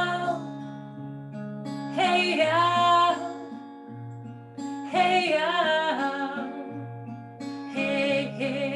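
A voice sings a chant over strummed acoustic guitar, with short sung phrases about every three seconds and the guitar ringing steadily between them.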